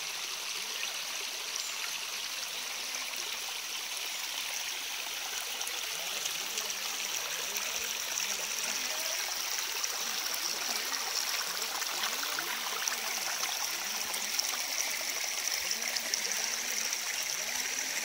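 Shallow stream running over a smooth rock slab and around stones: a steady rush of water with small gurgles.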